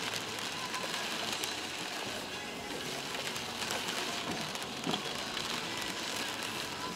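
Toyota Land Cruiser 120 driving slowly on a rough dirt track, heard from inside the cabin: a steady noise of tyres on the ground with scattered clicks and knocks.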